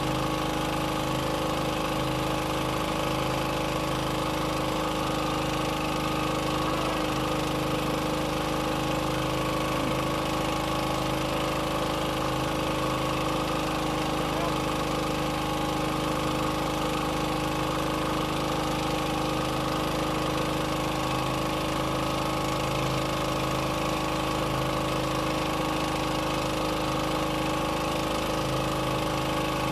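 Boat engine running steadily at constant speed, with an even, unchanging drone.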